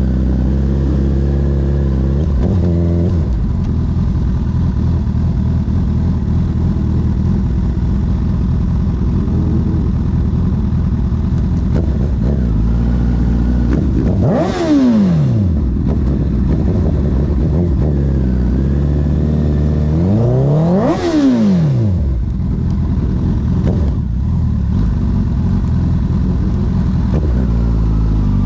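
Honda CB1000R's inline-four engine through a CS Racing full exhaust system, running under way with its pitch shifting as it changes speed. Twice, about halfway through and again some seconds later, it revs sharply up and straight back down.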